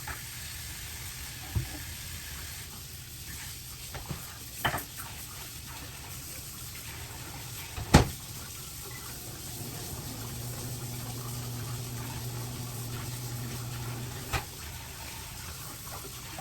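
Water running from a kitchen tap in a steady rush, with a few sharp knocks, the loudest about halfway through. A low steady hum joins from about ten to fourteen seconds in.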